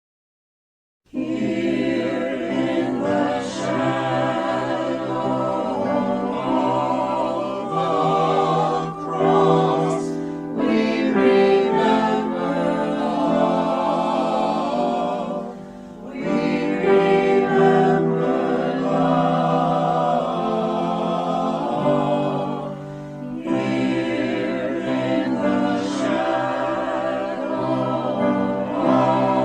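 A choir singing choral music, starting abruptly after about a second of silence, with short breaks between phrases.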